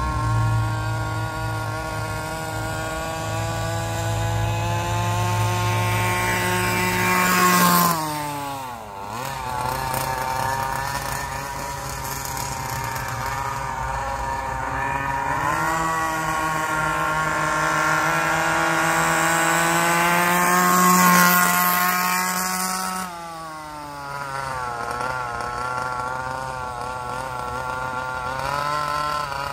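30 cc two-stroke gas engine of a Baja 5T RC truck running at full throttle, its pitch climbing as it accelerates. It drops off sharply about eight seconds in, revs back up for a long high run, then falls to a lower, uneven rev near the end.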